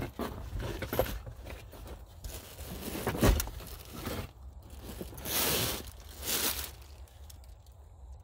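Hands rummaging through plastic bags and loose car parts: irregular crinkling and scraping, a sharp knock about three seconds in, and two louder bursts of crinkling plastic a little past halfway.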